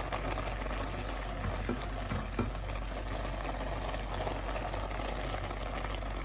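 Bamboo rice simmering in water in a nonstick pan: a steady bubbling hiss with many small pops.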